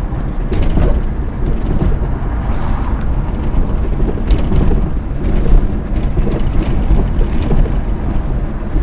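Car driving on a rough asphalt road, heard from inside the cabin: a steady low rumble of engine and tyres, with short knocks and rattles from the car's body every second or so over the uneven surface.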